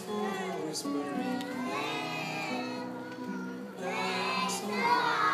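A group of preschool children singing together over backing music, with held notes running under their voices; the singing swells and gets loudest near the end.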